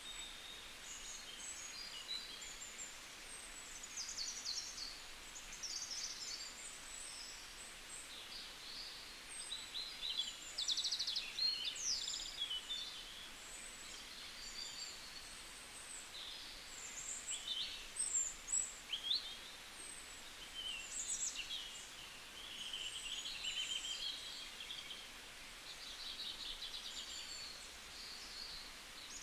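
Small birds chirping, with many short high-pitched calls and trills overlapping over a faint hiss.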